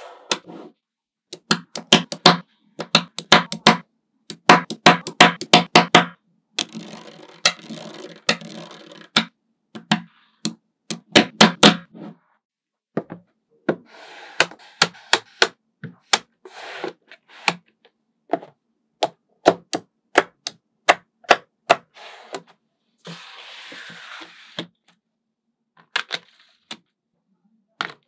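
Small magnetic balls clicking as they snap together, in quick irregular runs of sharp clicks with short pauses. There are a few brief stretches of rattling hiss in between.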